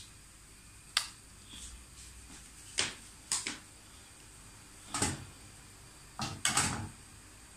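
A handful of short, sharp knocks and clicks at irregular intervals, some in quick pairs, over a faint steady background.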